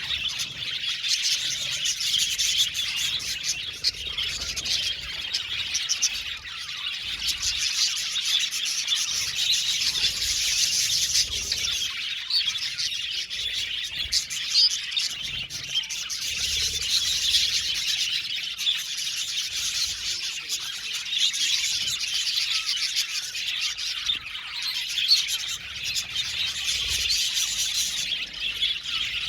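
A flock of budgerigars chattering and chirping: many birds calling at once in a dense, continuous warble of rapid short notes.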